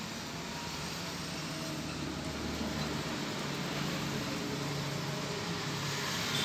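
Steady background noise, an even hiss with a faint low hum underneath and no distinct events.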